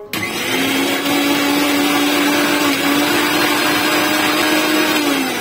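Electric blender motor running steadily at high speed, blending a thick yogurt-and-spice marinade in its jar. It starts abruptly, and near the end it is switched off and begins to wind down, its whine falling.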